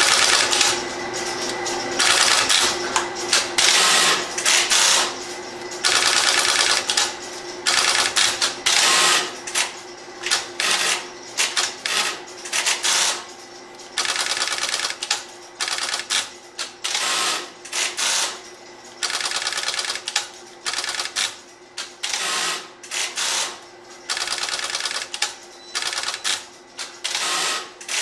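Stromberg-Carlson XY step-by-step switches stepping under dial pulses: trains of rapid mechanical clicking from the stepping magnets and relays, starting and stopping every second or few seconds, as the selectors hunt and cut into their wire banks.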